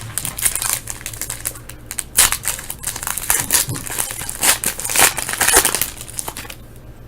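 A hockey card pack's wrapper being torn open and crinkled by hand: a run of irregular crackling rustles that dies away about six and a half seconds in.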